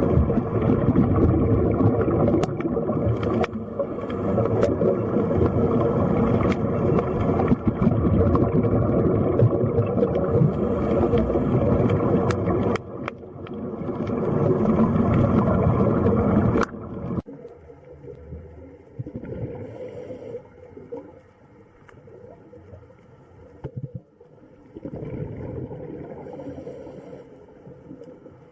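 Water ambience: a steady, full rush of water that drops away suddenly about two-thirds of the way through, leaving a quieter water sound that swells and fades.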